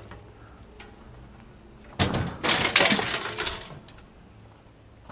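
A piece of scrap metal thrown onto a scrap pile: one sudden crash and clatter about two seconds in, dying away over a second and a half.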